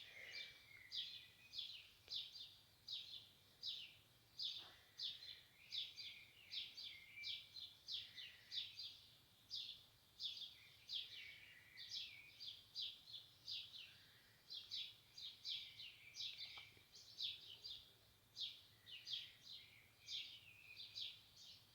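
Faint, rhythmic scraping of a utensil stirring butter, sugar and oil together in a mixing bowl, about two to three strokes a second, as the mixture is worked until the sugar dissolves.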